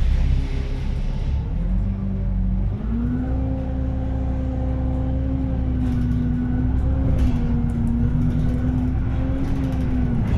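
City bus engine and drivetrain heard from inside the cabin: a low rumble with a whine whose pitch rises as the bus pulls away about three seconds in, holds steady, and drops again near the end.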